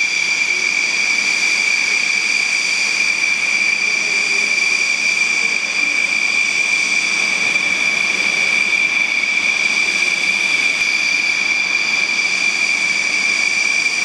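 Steady high-pitched engine whine, holding the same pitch and loudness throughout.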